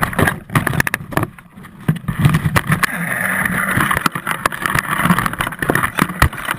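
An RC plane's airframe knocking and scraping against tree branches as it is jostled on a rope, picked up close by its own onboard camera: a run of sharp clicks and knocks, with a steadier rustling rush from about two seconds in.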